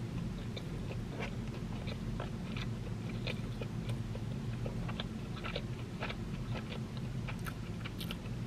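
A person chewing a mouthful of bacon cheeseburger close to the microphone: soft, irregular mouth clicks and smacks over a low steady hum.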